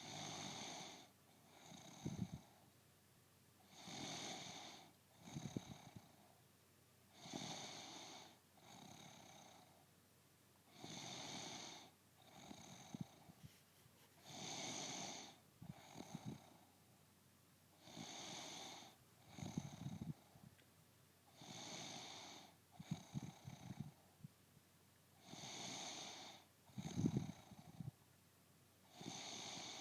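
A woman snoring in her sleep, with a regular breath every three to four seconds. Each breath is a longer airy rush followed by a shorter rattling snore.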